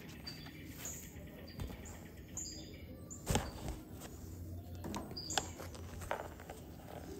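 Short high-pitched chirps, scattered and irregular, with a single knock or rustle a little over three seconds in.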